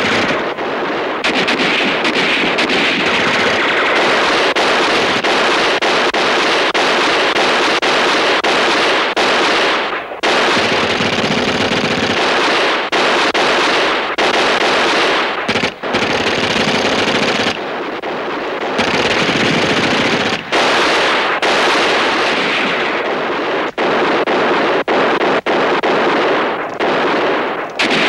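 Heavy, nearly continuous machine-gun fire in long rapid bursts mixed with single rifle shots, broken only by a few brief pauses: a battle soundtrack from a 1960s television war drama.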